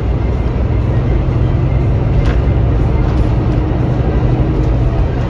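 Volvo B9R coach's diesel engine running steadily, heard from inside the passenger cabin as a loud low drone. There is a light click or rattle about two seconds in.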